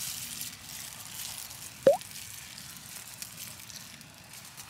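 A single wet mouth pop about two seconds in, a quick rising plop, as meat is sucked off a grilled lamb rib bone; the rest is a faint steady hiss.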